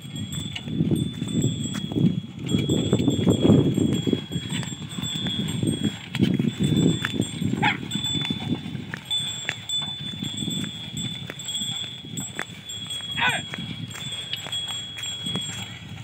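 A pair of bullocks pulling a plough across a field, heard under a gusty low rumble of wind on the microphone, with a faint steady high ringing. Two short high sounds come through, one about halfway and one near the end.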